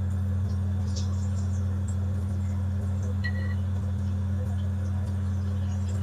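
Chicken leg deep-frying in hot sunflower oil in a wok, the oil bubbling with faint scattered crackles, over a steady low hum.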